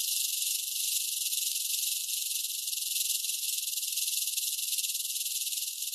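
Rattlesnake shaking its tail rattle: a steady, high, dry buzz that keeps going without a break.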